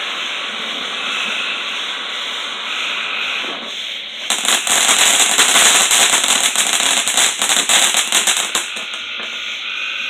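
Ground fountain firework spraying sparks with a steady hiss, then about four seconds in breaking into a loud, dense crackling for about four seconds before dying back to the hiss.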